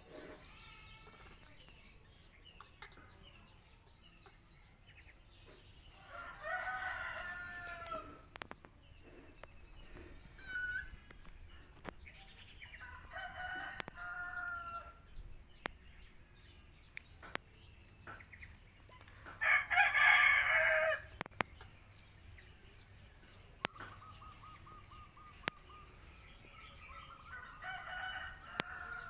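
Roosters crowing, four crows of a second or two each, the loudest about two-thirds of the way through, with faint bird chirps between them.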